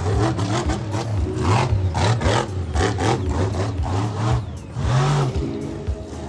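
Monster truck's supercharged V8 engine revving hard, surging and dropping off again and again as the truck drives and launches off the dirt jumps.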